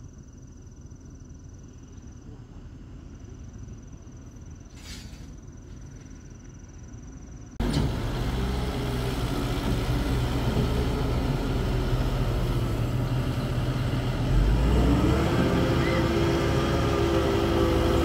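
A quiet low rumble with a faint thin high whine, then an abrupt switch to a Doosan DX140W wheeled excavator's diesel engine running loud and steady close by. About seven seconds after the switch it revs up, getting louder and rising in pitch.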